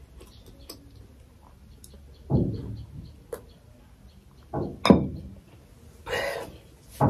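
Drinking water from a glass: a light clink of the glass, then a few loud gulping swallows. A breathy exhale follows near the end.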